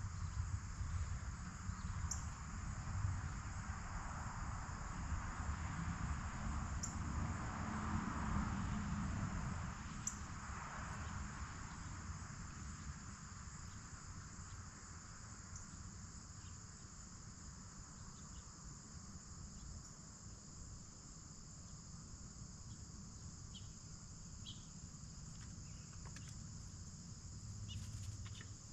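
Steady, high-pitched chorus of crickets or other late-summer insects, over a low background rumble. A broad hiss swells during the first half and fades away by about twelve seconds in, and a few faint ticks are heard.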